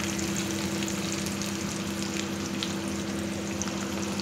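Garlic cloves frying in hot mustard oil in a kadhai: a steady sizzle with scattered small pops and crackles, over a steady low hum.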